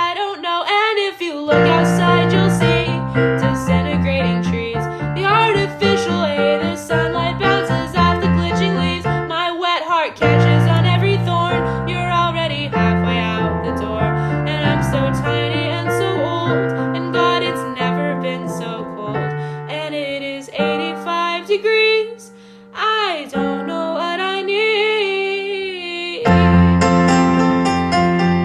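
Music: a piano accompaniment with a sung melody over it.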